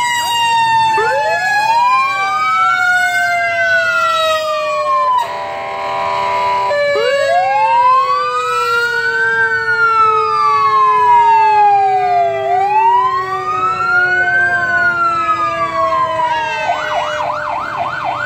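Emergency vehicle sirens going past: a slow wail rising and falling every few seconds over a second siren tone sliding slowly down. There is a horn blast of about a second and a half about five seconds in, and a quick yelp near the end.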